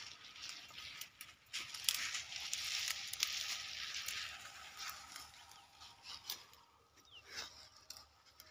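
Dry, harvested soybean plants and stubble rustling and crackling, with scattered sharp clicks. It is loudest between about one and five seconds in, then fades.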